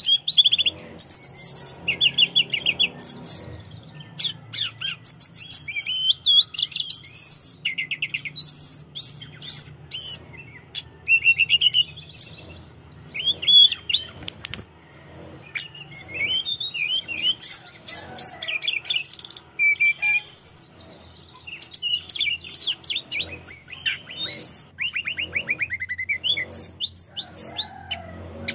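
Hill blue flycatcher (tledekan gunung) in full song: a long, varied run of quick chirps, sweet whistles and fast trills, phrase after phrase with only short pauses.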